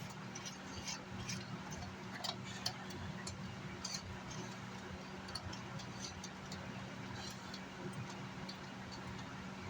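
Light, irregular clicks and ticks of a screwdriver and small metal parts being handled while a car amplifier is taken apart, over a steady low hum.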